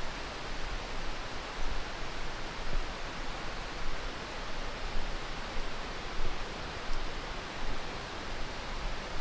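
Steady rush of flowing water from an irrigation channel, with soft footfalls on the path about once a second.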